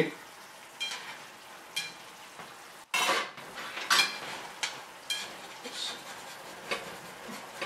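Water and oil simmering and sizzling around dumplings in a frying pan, with sharp clicks about once a second. Chopsticks touch the pan near the end.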